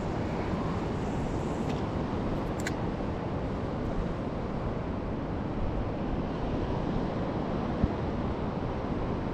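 Steady wind noise on the microphone mixed with ocean surf, with one short thump near the end.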